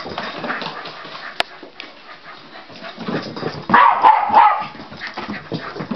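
Small dog giving excited yips and barks, the loudest burst about four seconds in, with a sharp click about a second in.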